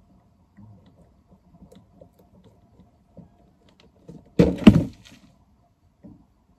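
A cardboard rabbit trap's flat cardboard door closing over the box opening with a burst of thuds and rattling lasting about half a second, about four and a half seconds in. Before it, faint scattered scuffs come from the rabbits moving on the straw inside the box.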